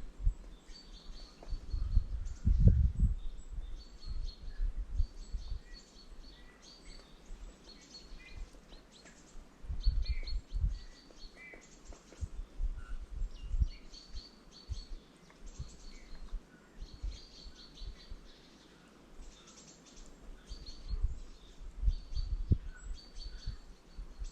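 Small songbirds giving short, high chirping calls in repeated clusters at a bird feeder, with irregular low rumbles and thumps underneath.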